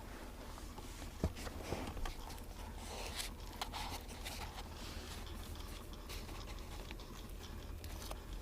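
Irregular clicking and ticking from behind the dash of a 2008 Ford F-150, over a steady low hum, with one sharp click about a second in. Online research puts this noise down to a failing A/C-heat (HVAC) actuator.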